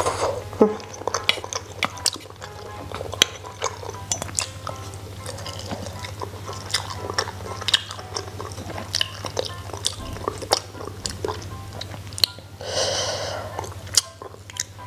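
Close-miked eating: chewing with many small sharp clicks of chopsticks against a metal bowl, over quiet background music. A short breathy rush comes near the end.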